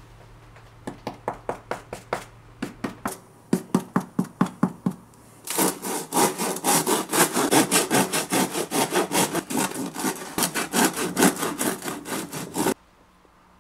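A long knife sawing through a crusty loaf of freshly baked bread in quick back-and-forth strokes, rasping through the crust. There is a lighter run of about four or five strokes a second, then a louder, denser run from about five seconds in that stops abruptly near the end.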